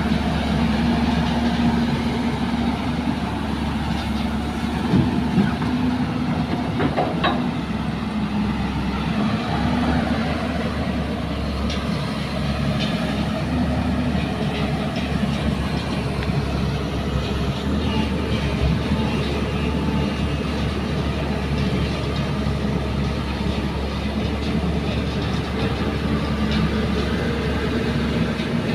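Diesel engine of a JCB tracked excavator running steadily as the machine digs and swings, with a low steady drone. A few short knocks sound about four to seven seconds in.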